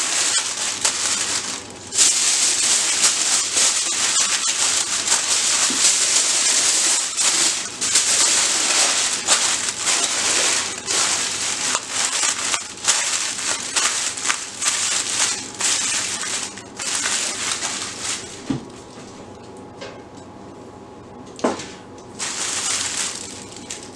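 Aluminium foil crinkling and crumpling under hands as it is pressed and folded tight around a brisket. The rustling eases off in the last few seconds, leaving a couple of light knocks.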